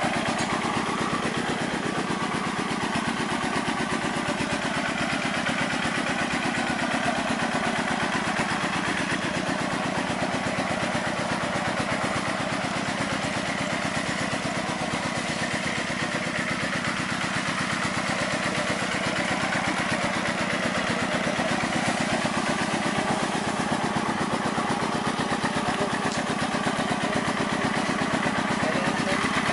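Small diesel engine running steadily at a constant speed, driving the water pump that jets water down the hole to drill a well.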